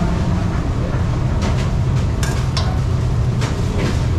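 Metal spatula scraping and clinking on a steel flat-top griddle: a handful of sharp scrapes and clinks around the middle, over a steady low rumble.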